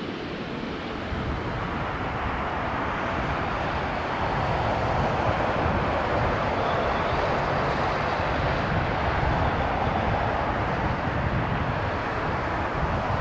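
Jet airliner passing low overhead on landing approach, its engines a broad rushing rumble that swells about a second in, stays loud through the middle and eases slightly near the end.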